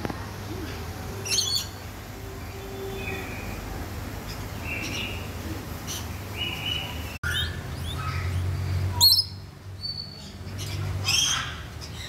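Lorikeets calling: scattered short shrill screeches and a few brief whistled notes, with the loudest screech about nine seconds in.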